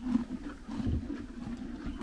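Horses chewing hay close up: a rhythmic crunching of the dry stems, with the rustle of hay being pulled and shifted at the feeder.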